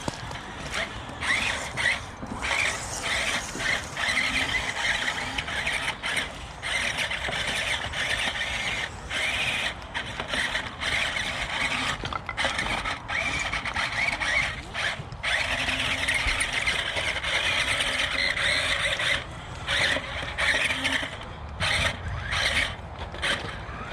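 Electric drive motors and gearboxes of a JJRC Q137 8x8 RC skid-steer truck whining as it is driven. The throttle comes on and off, so the whine runs in bursts of a second to a few seconds, with short breaks between them.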